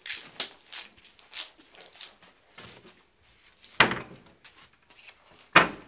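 Someone rummaging through kitchen cupboards: a string of light clicks and knocks, then cupboard doors banging shut twice, loudly, about four seconds in and again near the end.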